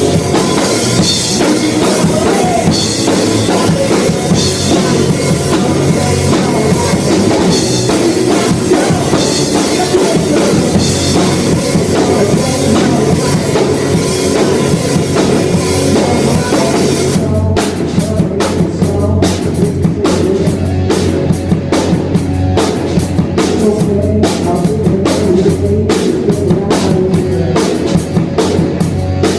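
A live rock band playing loud, led by a drum kit. About two-thirds of the way through, the steady cymbal wash drops away and separate drum hits stand out.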